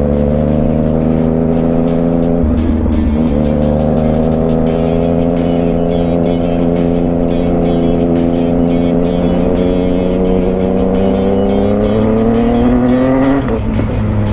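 Yamaha MT-09's inline-three engine running while riding, its pitch sagging slowly, with a brief break about two and a half seconds in that fits a gear change. Near the end the revs rise, then drop sharply about a second before the end.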